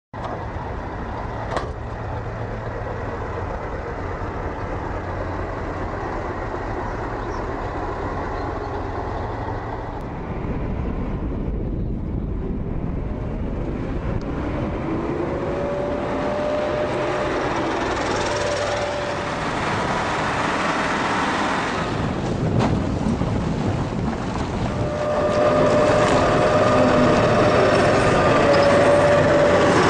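BTR-80A armoured personnel carrier's V8 diesel engine running as the eight-wheeled vehicle drives on a dirt track, a steady low rumble. From about halfway a whine rises and falls with the driving, and the sound grows louder near the end as the vehicle comes close.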